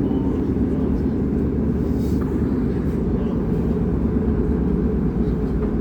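MTR Tuen Ma Line C-Train running between stations, a steady low rumble of wheels and running gear heard from inside the passenger car.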